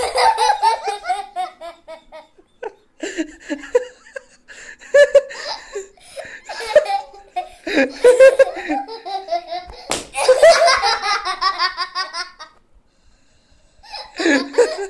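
Two young girls laughing hard in repeated fits of giggles, with a few spoken words mixed in and a sharp click partway through.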